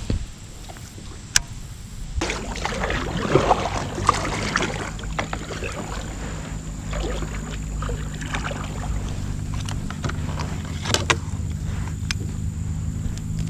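A kayak being paddled on a river: paddle strokes splashing and water moving along the hull, with a few sharp knocks.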